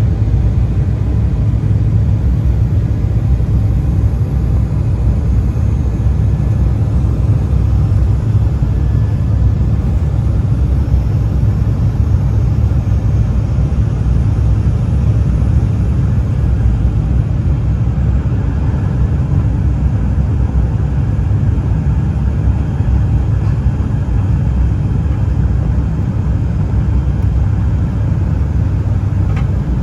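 Steady cabin noise of an Embraer E175 regional jet in flight: an even low rumble of airflow and engines, heard from inside the cabin at a window seat.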